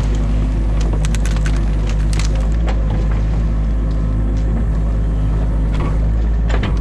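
Excavator's diesel engine running steadily, heard from inside the cab, while branches of a beaver dam crack and snap several times in quick succession about a second in, with two more cracks near the end.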